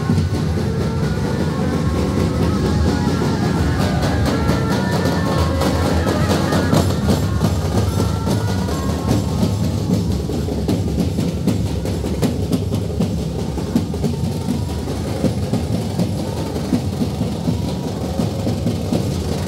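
Music with steady drumming. A melody line runs over the drums for the first several seconds, then thins out about eight seconds in, leaving mostly percussion.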